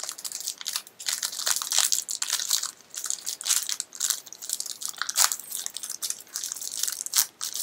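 Small blind-bag wrapper crinkling and crackling in the hands as it is worked open to get at the pin inside, in a rapid irregular run of crinkles.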